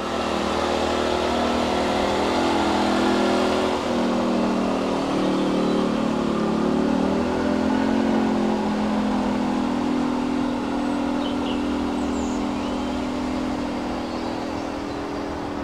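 Small model aircraft engine powering a garden-railway Bo-Bo locomotive, running steadily under load while hauling a long goods train, its pitch wavering slightly. It grows gradually fainter over the second half.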